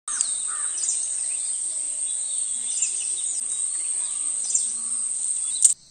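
Steady high-pitched insect trill, with a few short bird chirps over it; it cuts off abruptly near the end.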